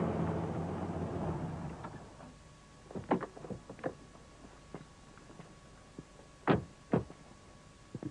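A vehicle's engine running, fading away over the first two seconds. Then a car door is opened with a few clicks and knocks about three seconds in, and two car doors slam shut about half a second apart, near the six-and-a-half-second mark.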